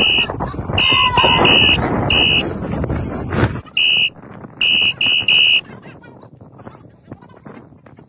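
A high-pitched beep sounding in short bursts, nine in all, grouped one, three, one, one, three, over men's shouting and commotion that fades out about three and a half seconds in.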